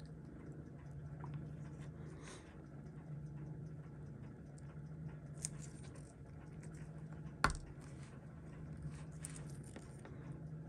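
Faint small clicks and taps of steel tweezers handling the parts of a Seiko 6139 automatic chronograph movement during disassembly, with one sharp click about seven and a half seconds in. A low steady hum runs underneath.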